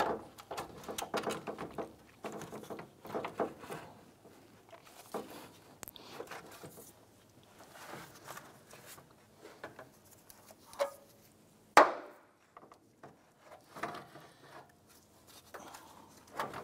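Plastic radiator fan shroud knocking and scraping against the radiator and surrounding parts as it is worked down into place by hand, with scattered small clicks and one sharp knock about twelve seconds in.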